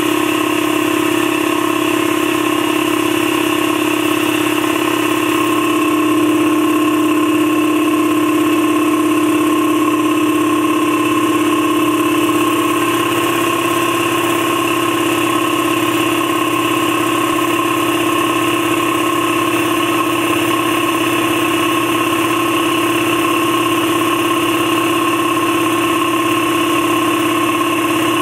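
Campbell Hausfeld 60-gallon twin-piston air compressor with a 3.2 hp single-phase electric motor, running steadily as it pumps an empty tank up through low pressure.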